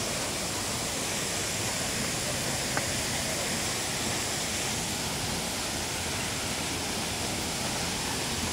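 Steady, even rushing of a waterfall, with no breaks or changes, and a single faint click about three seconds in.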